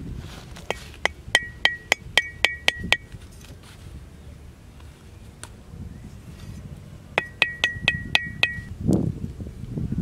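Rapid taps of a metal knife blade, each ringing with a clear tone. There is a run of about nine taps at about three a second, then after a pause a shorter run of about seven.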